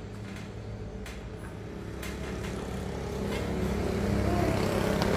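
A motor vehicle's engine running steadily, growing louder from about two seconds in.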